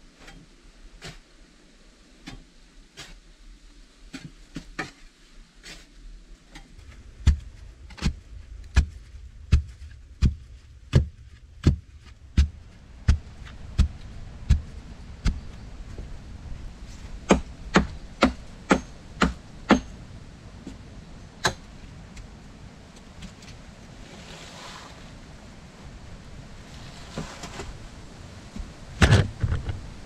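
Steady series of sharp knocks at the foot of an upright wooden post in a sandy dugout, a little over one a second, growing louder after a few seconds and bunching closer together past the middle. A heavier thump comes near the end.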